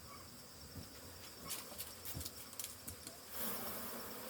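Honey bees buzzing around an opened hive. The buzzing is faint at first, with a few light clicks, and grows louder near the end.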